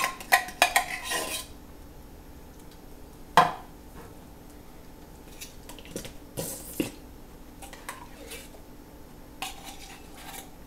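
Metal spoon scraping and clinking inside a can of condensed cream of mushroom soup as the thick soup is scooped out. The scrapes come in a quick cluster at the start, then a few separate times with quiet gaps between.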